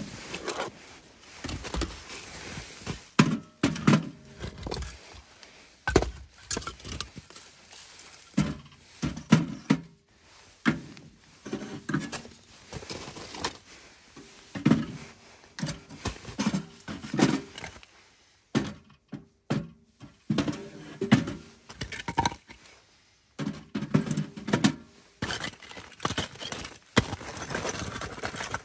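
Split firewood being stacked piece by piece into the firebox of a small steel Pomoly tent stove: repeated wooden knocks and thunks as the logs strike each other and the stove.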